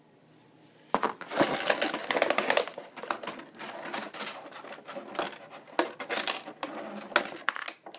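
Clear plastic blister packaging crinkling and crackling as a hand rummages in the tray for small parts, starting about a second in and going on in irregular bursts.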